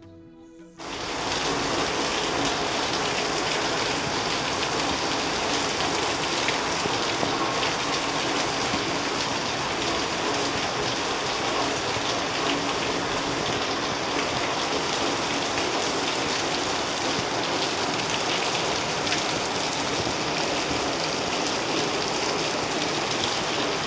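Steady rushing water, rain-like, cutting in suddenly about a second in and holding even throughout.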